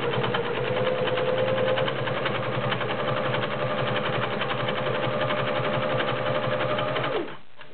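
Singer Genie 353 portable sewing machine running steadily while sewing a blind stitch: a steady motor whine with rapid needle clatter, which stops suddenly near the end.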